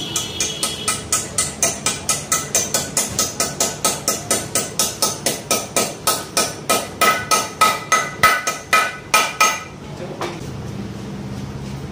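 Hammer striking metal in a Royal Enfield Bullet's crankcase half: a steady run of ringing blows, about three to four a second. The blows grow heavier towards the end and stop about nine and a half seconds in.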